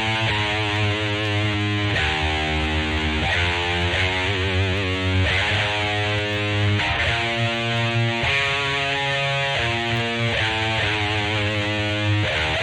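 Greco EG-550 electric guitar played through a Peavey Vypyr VIP 2 modeling amp on a distorted, high-gain patch: sustained chords and held notes changing every second or two, with a wavering vibrato on one note near the middle.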